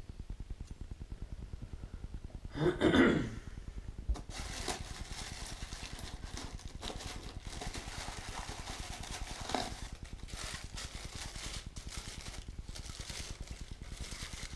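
Packing paper rustling and crinkling, with light knocks, as metal model crane parts are unwrapped and handled; a louder burst of sound about three seconds in, over a steady low hum.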